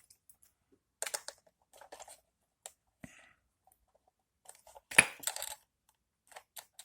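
Sparse small clicks and taps of tiny plastic and metal parts being handled: an HO-scale Kadee coupler gearbox being worked on by hand with small tools. About half a dozen light clicks, the sharpest about five seconds in.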